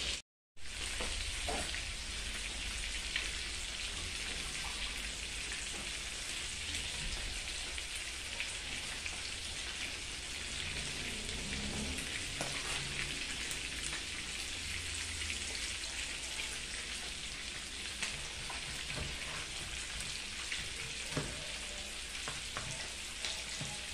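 Chicken pieces frying in oil in a frying pan, a steady sizzle throughout. A few light knife clicks on a plastic cutting board come near the end as tomatoes are sliced.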